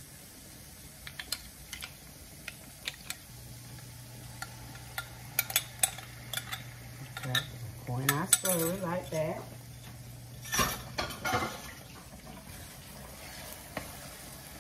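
A spoon clinks irregularly against a glass measuring cup as a cornstarch slurry is mixed. About eight seconds in, the slurry is poured into a hot skillet of onions, which sizzles, and a wooden spoon stirs it through the pan.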